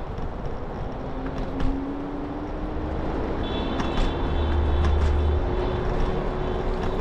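Scooter riding noise: steady wind and road rumble, with a hum that slowly rises in pitch. A brief high-pitched tone sounds around the middle.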